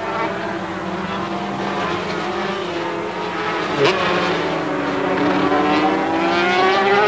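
A 250 cc two-stroke Grand Prix racing motorcycle at high revs. Its engine note drops abruptly about four seconds in, then climbs steadily as it accelerates away.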